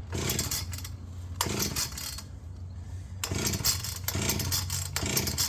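Chainsaw idling with a steady low hum, revved in about four short bursts.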